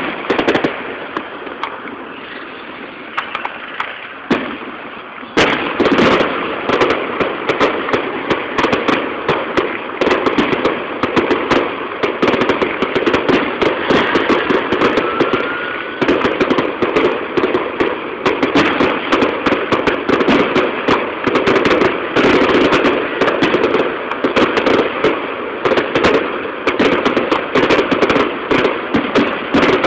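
Aerial firework shells bursting with crackling. From about five seconds in, the bangs come thick and fast in a continuous barrage.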